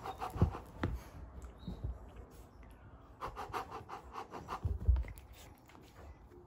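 A Sphynx cat scrabbling and rustling on a fleece blanket, with a few soft thumps. Quick runs of scratching come near the start and again about three seconds in.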